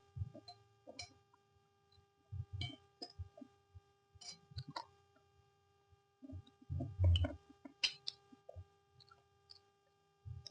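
Someone eating noodles: irregular chewing and mouth noises with light, sharp clicks of cutlery, the loudest burst about seven seconds in, over a faint steady electrical hum.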